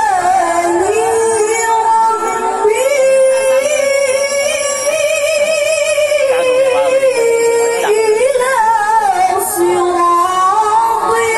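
A female Qur'an reciter chanting in the melodic recitation style, holding long notes with wavering ornaments and gliding between pitches.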